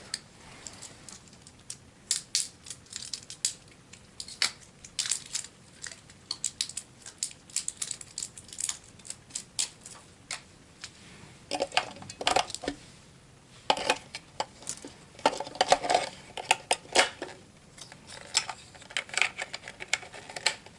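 Irregular sharp clicks and rattles of hard plastic and small metal parts being handled: the battery door of a pistol-grip RC transmitter being opened and AA batteries fitted, with busier handling about 12 s and 15 s in.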